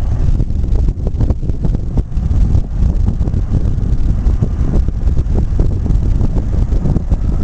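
Wind buffeting the microphone: a loud, uneven low rumble that comes and goes in gusts, covering any machine sound from the sprayer.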